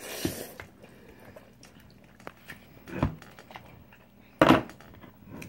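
A person slurping and chewing a mouthful of instant ramen noodles, with a few short slurps; the loudest comes about four and a half seconds in.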